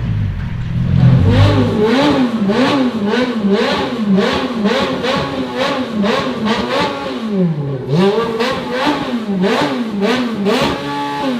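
Modified car engine with an aftermarket exhaust revved in quick repeated blips, about two a second, the pitch rising and falling with each and a sharp crackle at the top of each rev. Twice the revs drop lower for a longer dip, about eight seconds in and near the end.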